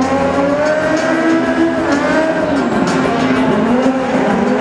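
Stunt car's 1300 cc motorcycle engine revving hard, its pitch rising, dipping about halfway through and rising again, with tyre squeal.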